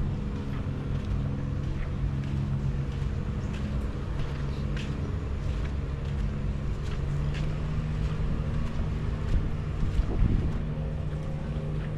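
An engine running at a steady low hum, holding the same few pitches throughout, with faint scattered ticks above it.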